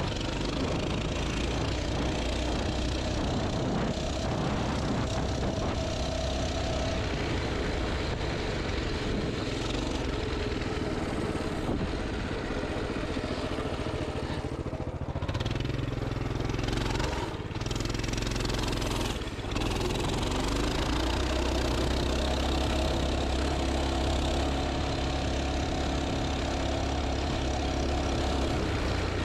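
Pit bike engine running as the bike is ridden through snow, its note rising and falling with the throttle. It dips briefly twice a little past the middle, then climbs and holds a steady higher note.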